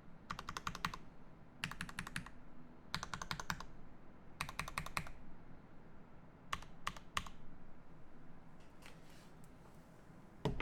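Typing on a custom mechanical keyboard (Alicia by Kibodo Studio) with factory-lubed Ultramarine switches, an acrylic plate and GMK keycaps. There are four quick runs of keystrokes, then a few single keys that thin out, and one sharp loud click near the end.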